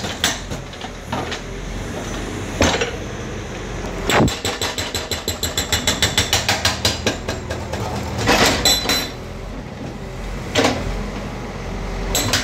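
Hydraulic breaker on a CAT backhoe loader hammering concrete road surface in runs of rapid, evenly spaced blows, several a second, with single heavy knocks between the runs. The backhoe's diesel engine hums steadily underneath. The longest run of blows starts about four seconds in and lasts about four seconds.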